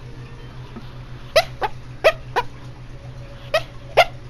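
Dog yipping in its sleep while dreaming: three pairs of short, high yips, each sliding down in pitch.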